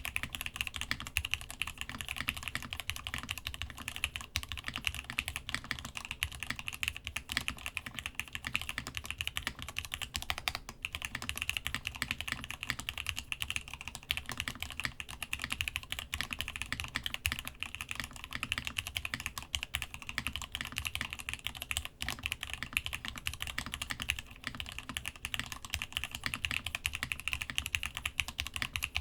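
Rapid, unbroken typing on a Masjewerke Muramasa mechanical keyboard fitted with spring-swapped, lubed Gat X linear switches and DCD Gondor keycaps, on a desk mat over a solid wood desk.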